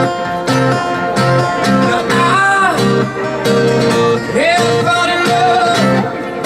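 Live acoustic music: a guitar strummed in a steady rhythm, with a voice singing gliding, drawn-out notes about two and a half and four and a half seconds in.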